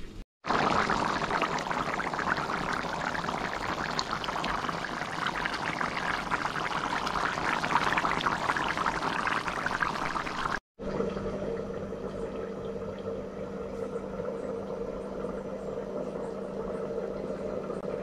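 Thick curry goat bubbling and spluttering in a pan on the stove, a dense crackling hiss. After a sudden cut about ten seconds in, a steadier hum with a constant low tone follows.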